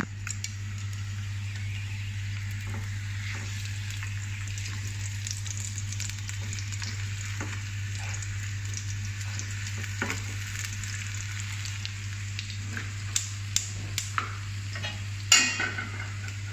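Slices of luncheon meat sizzling as they fry in a non-stick pan, with a steady low hum underneath. Chopsticks tick against the pan as the slices are turned, with a few sharp knocks near the end, the loudest about a second before it ends.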